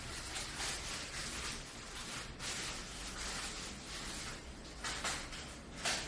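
Irregular rustling and scraping noises, with two sharper knocks about a second apart near the end.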